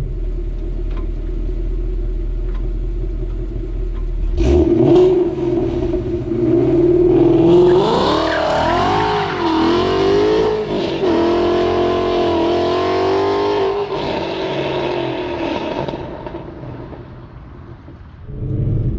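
Ford Mustang Boss 302's 5.0 L V8 rumbling low, then launching hard about four seconds in and revving up through the gears with traction control off: the engine note climbs, dips and wavers at a shift, holds high, then fades out near the end.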